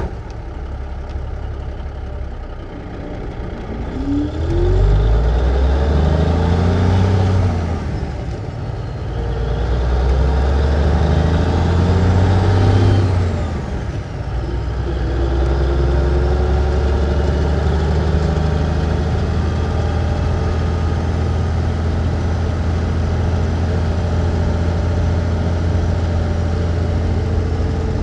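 Engine of a 1954 big-rig truck heard from inside the cab as the truck pulls away. It revs up through the gears, with its pitch dropping at two gear shifts, then runs at a steady speed.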